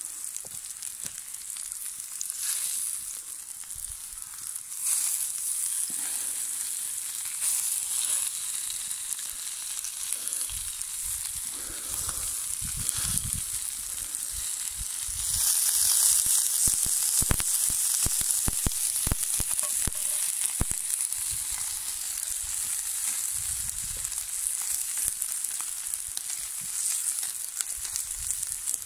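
Oil sizzling in a skillet over a wood fire as vegetable pieces and sausage slices fry. The sizzle grows louder a little past the middle, with a few soft knocks scattered through it.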